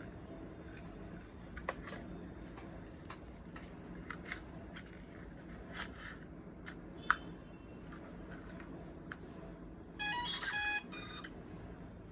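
Electronic beeps from the S160 drone set: a quick run of high, stepped beep tones about ten seconds in, breaking briefly and then starting again, like a power-on tune. Before it there are a few light clicks, as of plastic being handled.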